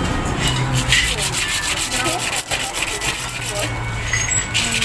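Quick, repeated rubbing strokes of a bicycle freehub part being rubbed clean by hand.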